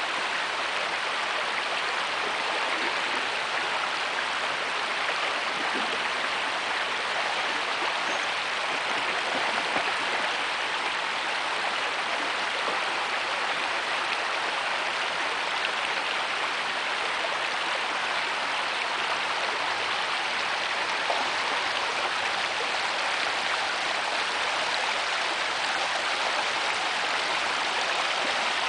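Shallow creek rushing steadily over gravel riffles, a constant even water noise.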